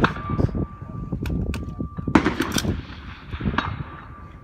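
Rifle shots on a range: a loud sharp report at the start and another about two seconds in, with smaller clicks and knocks between them.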